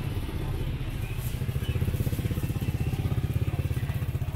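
A small engine running steadily with a fast, even low pulse.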